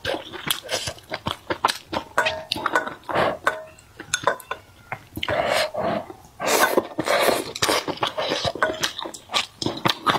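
Close-miked eating: chewing and wet mouth sounds, with irregular clicks and taps of wooden chopsticks against the pot and bowl.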